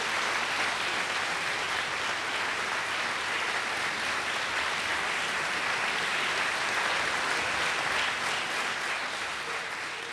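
Large theatre audience applauding steadily, the clapping beginning to fade near the end.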